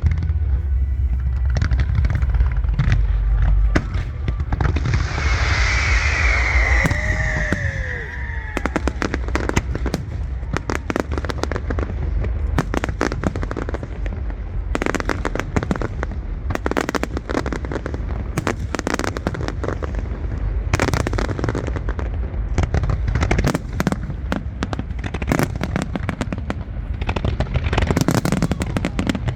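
Aerial fireworks bursting in a rapid, continuous barrage, many sharp bangs and crackles a second. A deep booming rumble fills the first few seconds, and a high falling whistle rises over the bangs about five seconds in.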